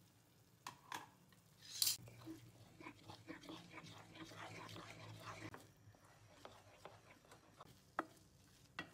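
Wooden spatula stirring beaten egg into fried meat filling in a non-stick pan: faint scraping with a few light knocks against the pan.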